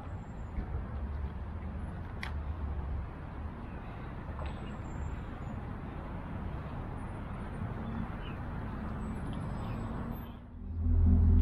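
Steady low rumble and hiss of outdoor background noise, with one sharp click about two seconds in. It dips briefly near the end and background music starts.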